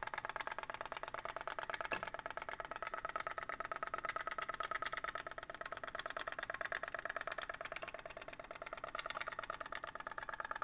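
3D-printed pop-pop (putt-putt) boat puttering with a rapid, even stream of pops. A tealight-heated boiler made from a soda can pushes steam and water out of the rear tubes. A single sharper click comes about two seconds in.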